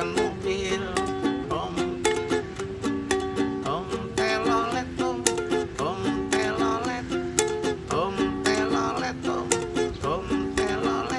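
Instrumental music from the song: plucked strings strummed to a steady, quick beat, with a wavering melody line over it.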